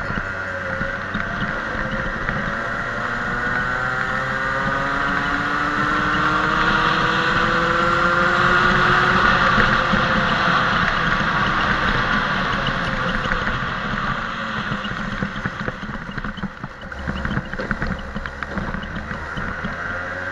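Racing kart engine heard from on board, its pitch climbing steadily under full throttle for most of the first half and then dropping as the driver lifts off for a corner, before picking up again near the end. Wind rushes over the microphone throughout.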